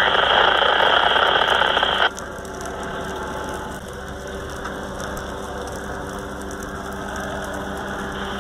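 A burning pickup truck crackling and popping loudly for about two seconds. The sound then cuts to a quieter steady engine hum with fainter crackling from the burning brush.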